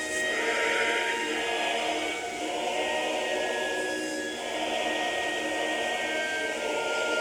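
Film soundtrack: music with held notes, choir-like, over a steady rushing noise that swells and fades every couple of seconds.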